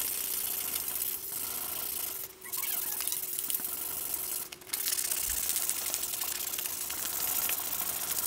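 Wet hand-sanding of a steel cleaver blade with sandpaper: a steady rasping of grit rubbing back and forth on the steel, broken by two short pauses, about two and a half and four and a half seconds in.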